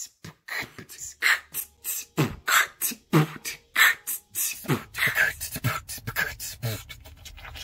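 A woman beatboxing as a learner: mouth-made kick-drum thumps with snare and hi-hat hisses and clicks in a quick rhythm, about three to four strokes a second.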